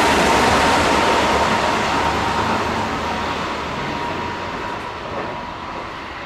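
Keikyu electric train running along the track and moving away, its rumble and rush of noise fading steadily, with a thin steady high tone through it.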